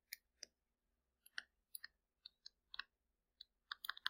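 Faint, irregular clicks and taps of a stylus tip touching down on a tablet screen while handwriting, a dozen or so small ticks spaced unevenly.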